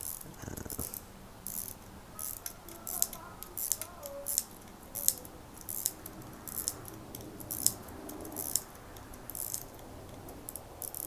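Winding crown of an Illinois Bunn Special 16-size pocket watch being turned to wind the mainspring, giving crisp ratchet clicks in short, irregular bunches, roughly two a second.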